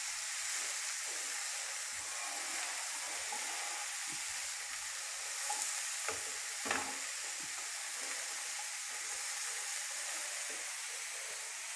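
Chopped button mushrooms sizzling steadily as they fry in hot oil in a kadhai on high flame, stirred with a spatula, with a couple of brief scrapes near the middle.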